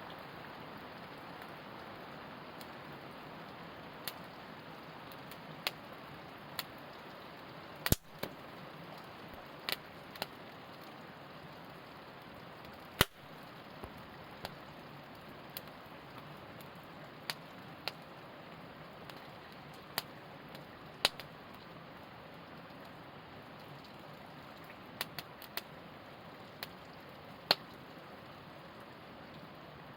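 Wood campfire burning: a steady hiss with irregular sharp pops and snaps from the burning wood, every second or so, two of them much louder than the rest.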